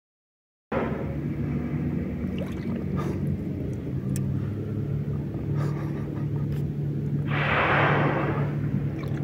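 A humpback whale's blow: one breathy whoosh of about a second, about seven seconds in, over a steady low motor hum on the water.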